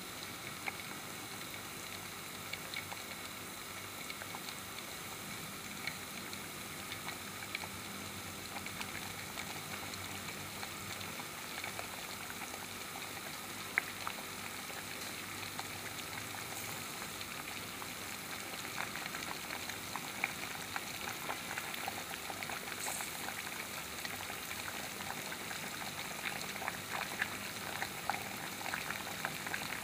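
Pot of rice in tomato broth at a rolling boil: steady bubbling with many small pops and crackles, growing a little louder toward the end.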